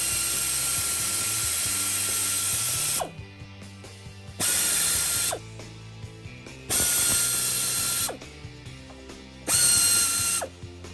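Air ratchet running on the water pump bolts in four bursts: one of about three seconds, then three of about a second each. Each burst is a loud hiss with a steady whine that drops in pitch as the motor spins down.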